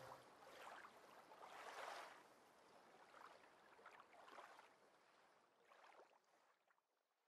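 Near silence, with faint soft swells of water noise: small waves lapping on a lake shore, a swell about every second or so, fading out about six seconds in.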